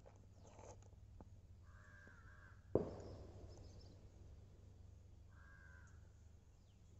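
Quiet soldering at a workbench with a faint steady hum, broken by one sharp knock about three seconds in. Two short animal calls sound in the background, one just before the knock and one about two and a half seconds after it.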